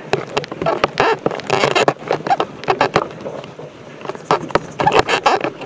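Irregular knocks, clicks and scrapes of a crowd of masked people moving and jostling close by.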